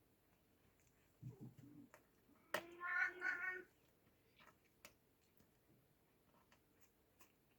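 An Oriental Shorthair kitten gives one meow about a second long, a little under three seconds in, after a few soft thumps; faint scattered clicks around it.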